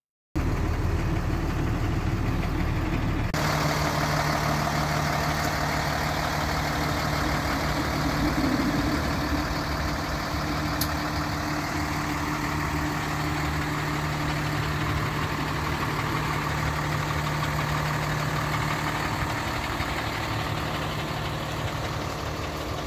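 2022 Mack MD6 rollback truck's Cummins six-cylinder diesel idling steadily. It is muffled for the first three seconds, as heard from inside the cab, then heard in the open.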